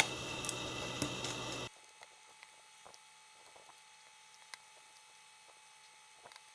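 Light clicks and taps of small plastic parts being handled over a steady hiss, which cuts off abruptly a little under two seconds in; after that, near silence with a few faint ticks.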